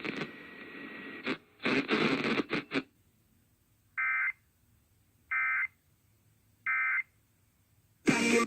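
Three short, identical buzzy digital data bursts about 1.3 seconds apart: the EAS end-of-message (NNNN) SAME code, which closes an emergency alert broadcast. They follow a few seconds of crackly radio noise, and a loud burst of another sound cuts in near the end.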